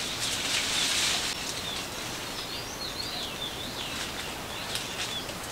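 A small bird singing a high, wavering warble for a couple of seconds, over a steady forest hiss that is loudest in the first second; a few sharp crackles come near the end.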